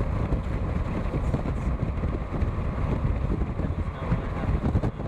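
Steady rumble of a vehicle driving, heard from inside the cabin: engine and tyre noise on a snowy road.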